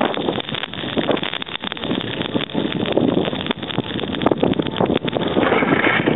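Strong dust-storm wind buffeting the camera microphone in uneven gusts, easing a little in the middle and stronger again near the end.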